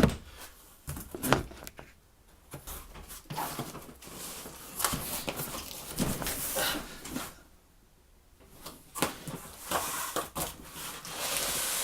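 A box and its packaging being handled: a thump as something is set down, then scattered knocks, taps and rustles, with a pause of about a second partway through. A steady hiss sets in near the end.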